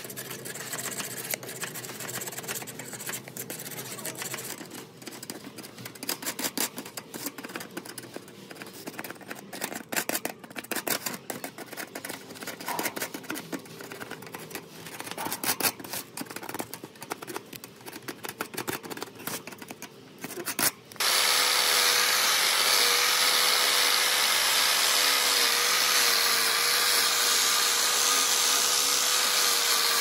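Metal scraper blade scraping caked dirt and rust off the wire bars of an old fan guard, in short irregular strokes. About two-thirds of the way through, a power tool starts abruptly and runs steadily with a slightly wavering whine, much louder than the scraping.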